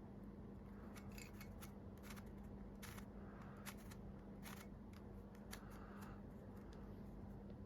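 Faint, irregular small clicks and light rustles from handling a product and its packaging by hand, over a steady low hum.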